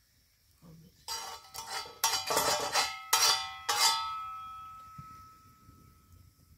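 Metal cooking utensils clanking: a cluster of sharp metal-on-metal strikes, then a ringing tone that fades away slowly.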